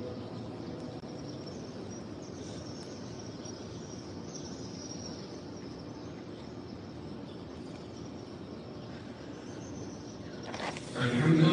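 Steady, even ambient hiss of a large open courtyard during a pause in a chanted recitation. Near the end, a loud chanted voice starts again abruptly.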